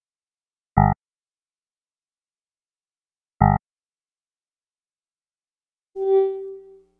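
Computer alert sounds: two identical short electronic beeps about two and a half seconds apart, then near the end a longer chime-like tone that rings and fades away.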